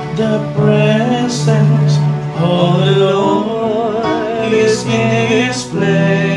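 Slow gospel music: a wavering melody line over held low notes.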